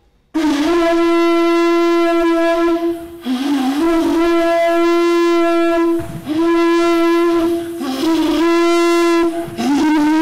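A wind instrument playing one loud note, held for about three seconds at a time and broken off and restarted several times, each new note sliding up into the same pitch.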